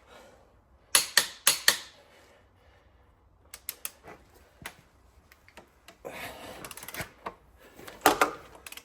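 Hand-tool clicks on Cummins NTC350 engine bolts being torqued to 140: a quick run of four metallic clicks about a second in, more scattered clicks around four seconds, some metal rubbing, and another cluster of clicks near the end.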